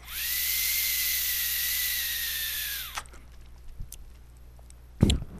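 Air drawn through the Youde Zephyrus tank's airflow holes during a hit on the vape: a steady hiss with a whistle, lasting about three seconds and cutting off sharply.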